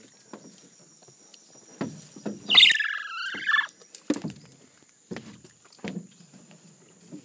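Soft knocks and rustles as a woolly monkey handles and eats a peeled banana. About two and a half seconds in comes one high, wavering squeal lasting about a second, the loudest sound here.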